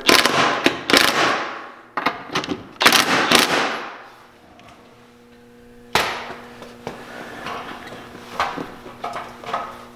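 A DeWalt 20V cordless impact gun hammering nuts tight on the rear radius rod plate bolts. It runs in three bursts of rapid rattling impacts over the first four seconds: a long one, a short one and another long one. About six seconds in comes one sharp metallic knock, followed by lighter clicks of tool and hand handling.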